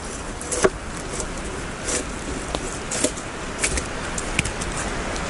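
Steady hiss of rain falling in the forest, with a few scattered light knocks and rustles as a log is handled and a rope is worked around it.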